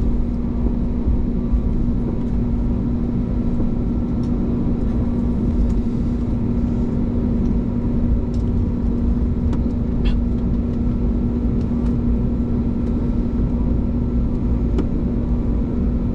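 Steady cabin noise inside an Airbus A321neo on the ground before takeoff: a low rumble and rush of air with a steady hum, and a few faint clicks and rattles.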